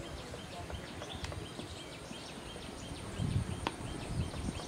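An animal's short high chirps repeat steadily, about three a second, over outdoor background noise. There is one sharp click about three and a half seconds in, and low rumbling bursts near the end.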